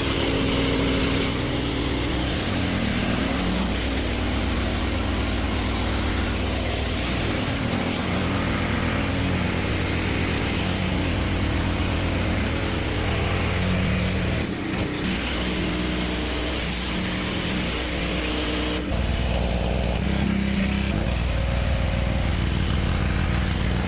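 Petrol pressure washer engine running steadily while the high-pressure water jet hisses against concrete, with two brief dropouts in the second half.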